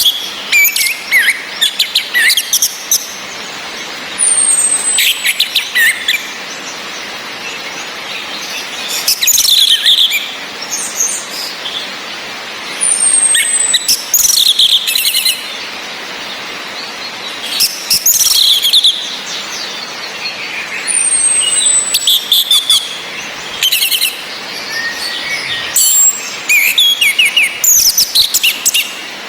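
Orange-headed thrushes singing and calling in repeated loud bursts, with a thin high falling whistle three times, over a steady hiss of rain.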